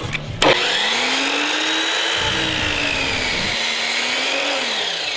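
12-inch chop saw's electric motor switched on with a click, its whine rising quickly as the blade spins up, then running steadily and starting to wind down near the end.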